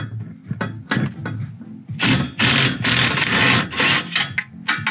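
Cordless impact wrench hammering on a seized downpipe flange bolt. A few clicks and knocks of the socket come first, then about two seconds in the wrench hammers in loud bursts for nearly three seconds.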